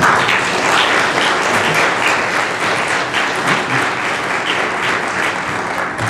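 A congregation applauding in many-handed clapping, thinning out near the end.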